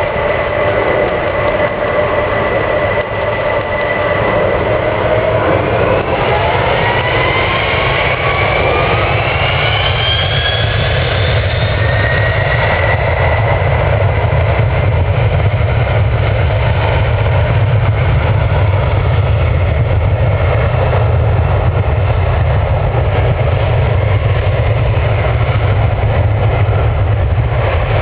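Boeing 767-400's twin turbofan engines spooling up for takeoff: a steady whine that, from about five seconds in, climbs in pitch over several seconds, then gives way to a loud, steady roar with a deep rumble as the jet runs at takeoff power.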